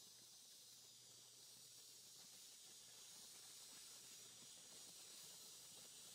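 Near silence: a faint, steady hiss with a low hum beneath it.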